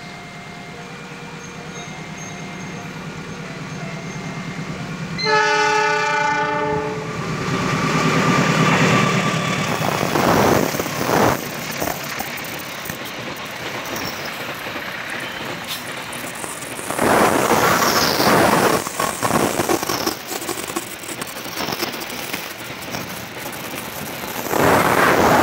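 Diesel locomotive of a cement freight train sounds its horn once, for about two seconds, about five seconds in, its engine growing louder as it approaches. Then the freight wagons clatter and rumble past on the rails, swelling loudest twice near the end.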